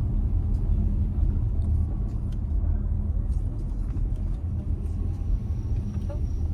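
Steady low rumble of a moving car, with road and engine noise and a faint constant hum.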